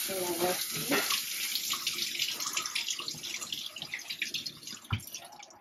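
Water running from a kitchen tap into a sink, with a single knock about five seconds in.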